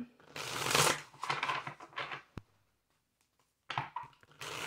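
A tarot deck being shuffled and handled in the hands: papery rustling in bursts for about two seconds, a single sharp click, a short quiet gap, then the rustling starting again near the end.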